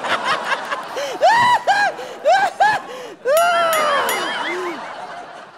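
A shrill voice crying out in a run of short rising-and-falling wails, then one longer falling wail about three seconds in that trails off.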